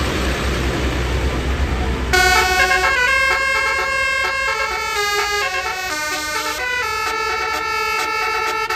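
Low rumble and hiss of a bus, then about two seconds in its telolet basuri horn starts playing a tune: several steady horn tones together, changing pitch in steps every half second or so.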